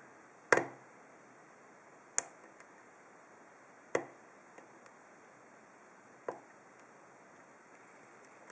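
Sharp metallic clicks from a pick and tension wrench working the pin stack of a Lockwood 334C45 stainless steel padlock during single-pin picking. There are four distinct clicks a second or two apart, the first the loudest, with a few faint ticks between.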